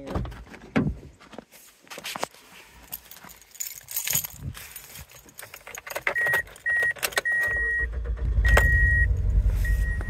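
Keys jangling and rattling at the ignition of a 2003 Toyota Matrix XRS, with a high beep sounding on and off, then the 2ZZ-GE four-cylinder engine cranks and starts about three-quarters of the way in and runs with a constant misfire, which the owners take for a dirty fuel injector.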